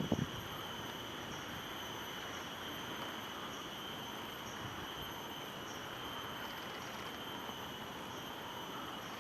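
Steady outdoor ambience: a constant high-pitched insect drone over a faint hiss, with a brief low thump right at the start.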